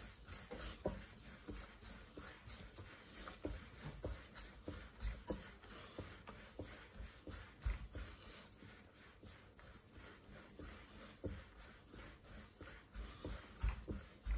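Hands kneading and rounding a soft dough ball on a marble countertop: faint, irregular soft thumps with rubbing and shuffling in between.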